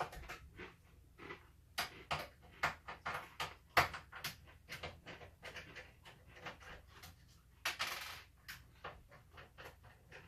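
Irregular light clicks, taps and clatter of small screws, a screwdriver and plastic parts being handled during the teardown of an Xbox 360, with a short breathy rush nearly eight seconds in.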